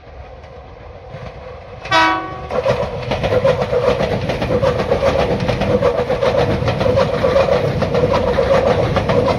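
Meitetsu Panorama Super electric train giving one short horn blast about two seconds in, then running past close by, loud and steady, with a fast clickety-clack of wheels over the rail joints.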